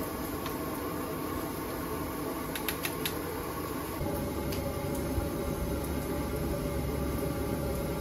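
A large aluminium pot of water at a rolling boil over a gas burner: a steady rumbling roar of flame and bubbling water. A few light clicks come about three seconds in, and the rumble grows a little stronger about halfway through.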